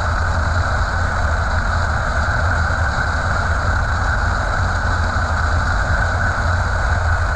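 Semi truck cruising at highway speed: a steady, unchanging drone of engine, tyres and wind, strongest in the deep lows.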